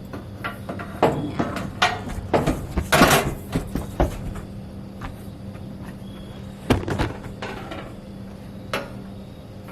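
Grill parts knocking and clattering as a panel is worked into its tabs during assembly: a run of sharp knocks in the first few seconds, then a few more later on.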